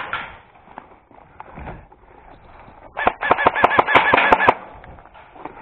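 Airsoft rifle firing a fast automatic burst of about a dozen shots, roughly eight a second, lasting about a second and a half, starting about three seconds in. Faint clicks and handling knocks come before it.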